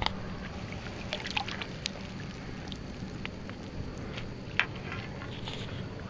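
Water sloshing and dripping, with a few short splashes and clicks, as a largemouth bass is scooped up in a landing net; a steady low hum runs underneath.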